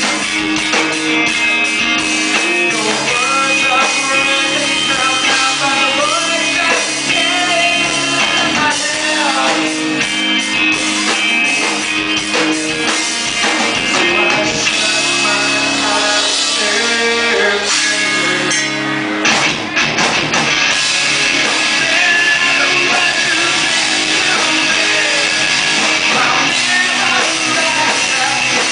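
Loud live rock band playing: distorted electric guitars, bass and drums, with a vocalist singing.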